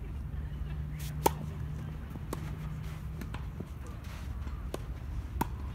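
Tennis ball being hit in a doubles point. A loud racket strike on the serve comes just over a second in, then about four more sharp racket hits and ball bounces follow at roughly one-second gaps during the rally.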